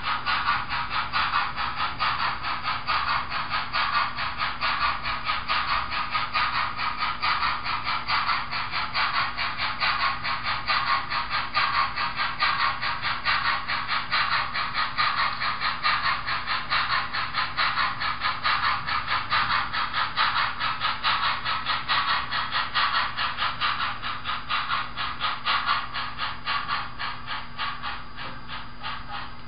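On2 model Forney locomotive hauling a short freight train up a grade, its drive and wheels on the track making a steady rattle of rapid, even clicks. The rattle grows quieter over the last few seconds.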